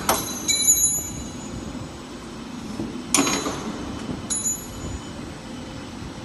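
Cold-extrusion pet-treat machinery running, a steady mechanical noise broken by a sharp metallic clank at the start and again about three seconds in, with ringing metallic clinks just after the first clank and again about four seconds in.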